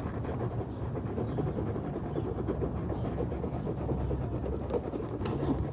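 Road and engine noise heard inside a moving car: a steady low rumble.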